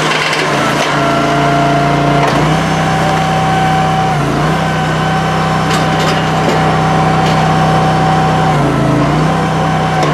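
Gasoline engine of a Honda-powered commercial log splitter running steadily. Its pitch dips briefly a few times as the hydraulic pump loads it while the ram splits logs. A few sharp cracks of wood splitting come around the middle.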